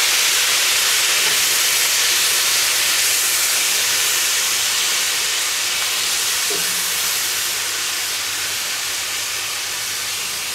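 Water poured into a hot cast-iron pan of cabbage and carrots hissing and sizzling as it flashes into steam. The hiss is loudest at the start and slowly dies down.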